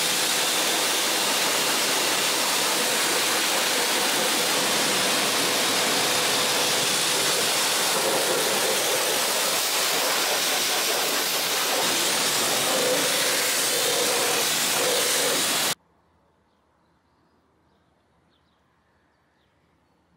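High-pressure washer jet spraying water onto a foam-covered motorcycle: a loud, steady hiss with a faint steady tone beneath it, cutting off abruptly about four seconds before the end.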